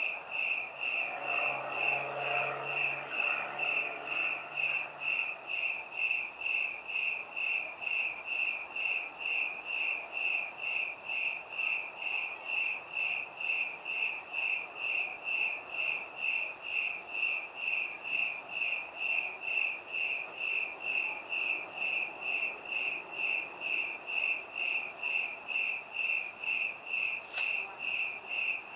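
A cricket chirping: a high, evenly spaced chirp repeated steadily without a break. A faint low hum is under it for the first few seconds, and there is a faint click near the end.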